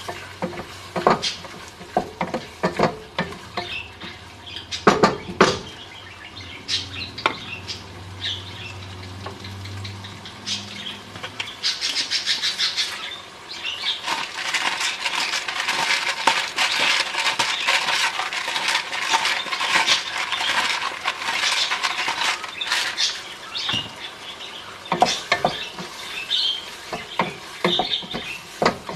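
Wooden spoon stirring and knocking against the sides of a granite-coated pot on a gas burner, with food frying and sizzling in it. The sizzle grows louder and denser in the middle, then the spoon's knocks return near the end.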